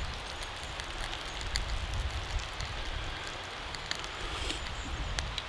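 Small wood campfire burning with a steady hiss and scattered small crackles and pops, snails in their shells roasting in the embers.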